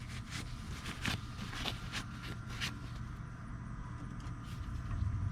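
A few light clicks and scrapes of the dipstick being handled in the oil filler of a snowblower engine while the oil level is checked, over a low steady hum.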